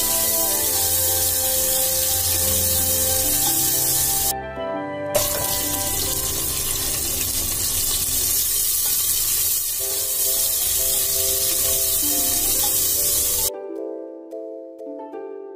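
Mutton pieces sizzling as they fry in oil with onions and spices, over soft background music. The sizzling breaks off briefly about four seconds in and stops abruptly near the end, leaving only the music.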